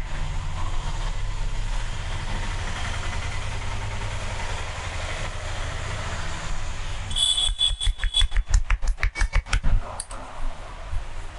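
Massage sounds: a steady low rumble, then a fast run of sharp hand slaps, about five a second, lasting two to three seconds, the percussive slapping stroke of a head or back massage.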